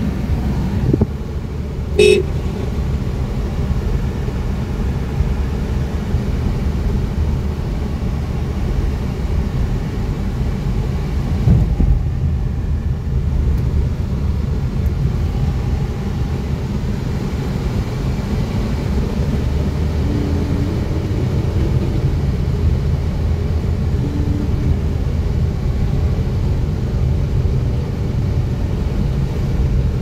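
Steady low rumble of a car's engine and tyres heard from inside the cabin while driving, with a short horn toot about two seconds in.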